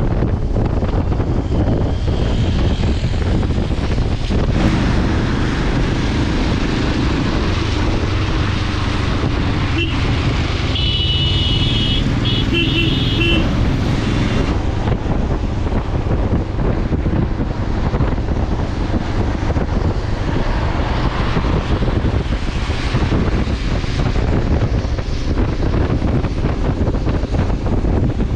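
Wind rushing over the microphone with steady road and vehicle noise from riding on a highway. About eleven seconds in, a vehicle horn sounds for roughly two and a half seconds.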